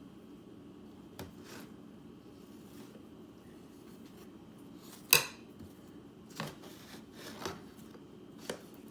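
A knife clinking and scraping against a plate while peanut butter is spread on a cardboard tube, a few scattered light knocks with one sharp clink about five seconds in.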